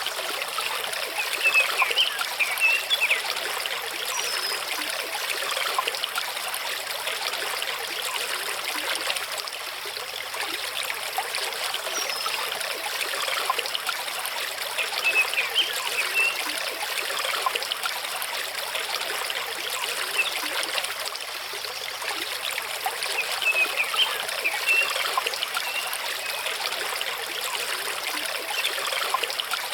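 Mountain stream running over rocks: a steady rush of water with small gurgles and trickles coming through now and then.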